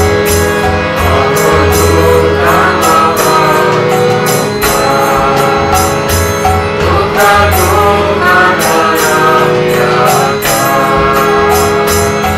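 Karaoke backing for an Indian devotional hymn: a wavering melody over a held drone, with a steady beat of jingling hand percussion about twice a second and a pulsing low drum.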